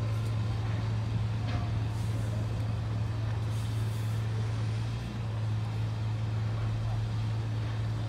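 Large engine running steadily, a constant low drone over a wash of background noise, with a faint hiss near the middle.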